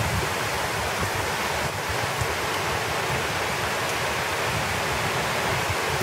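Heavy thunderstorm rain pouring steadily onto a cornfield and trees, with a low gusting rumble of wind buffeting the microphone.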